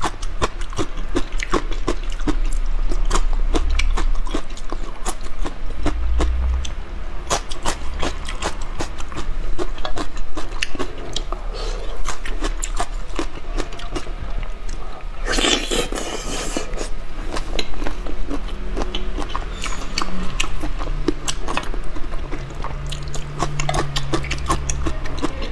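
Close-miked mukbang eating sounds: chewing, sucking and biting on spicy-sauce shrimp, a steady run of wet clicks and smacks, with a longer, louder noisy slurp about fifteen seconds in.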